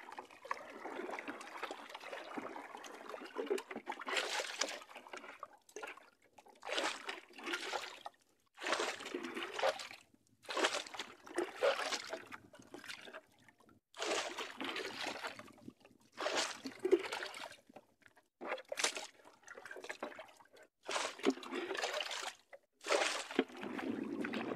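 Wooden paddle stroking through the water beside a small outrigger canoe: a rhythmic swishing splash, one stroke about every one and a half seconds.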